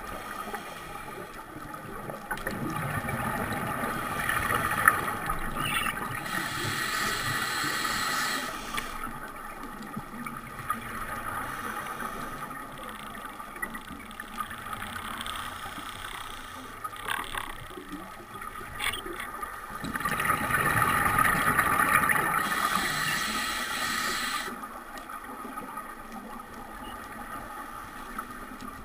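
Scuba diver's breathing heard underwater: regulator hiss and bubbling exhales swelling and fading breath after breath, loudest about two-thirds of the way through, with a few faint clicks.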